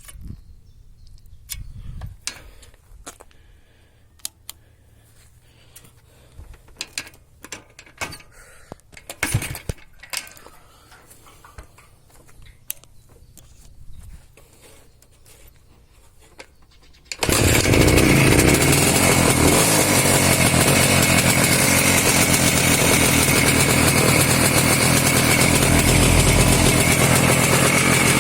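Scattered clicks and knocks, then about two-thirds of the way in a Voskhod 3M motorcycle's two-stroke single-cylinder engine starts suddenly and runs steadily. This is its first start after standing unused for a long time.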